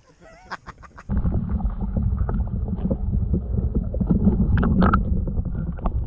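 Wind buffeting the microphone: a steady low rumble starting about a second in, with scattered small knocks and clicks over it.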